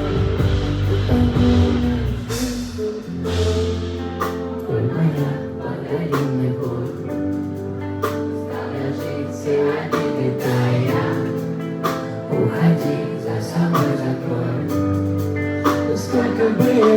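Live pop song played on stage with singing over the band; the deep bass drops away about three seconds in.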